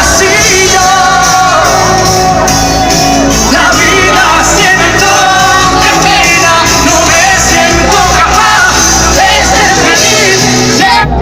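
Live pop concert music at full volume: band with sung vocals and shouting voices, echoing in a large hall.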